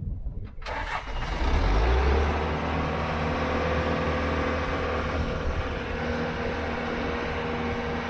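John Deere 310G backhoe's diesel engine starting about a second in, then running steadily.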